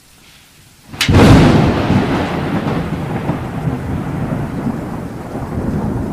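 A thunderclap: a sharp crack about a second in, then a long rolling rumble that slowly fades, with rain.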